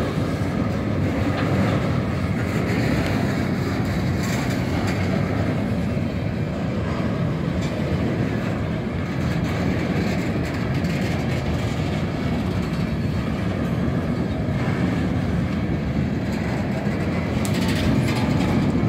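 Open-top gondola freight cars of a Ferromex freight train rolling past close by: the steady rolling noise of steel wheels on the rails.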